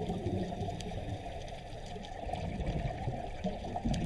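Steady sound of moving water, as in an aquarium tank: a low, even rushing with a few faint ticks and no distinct events.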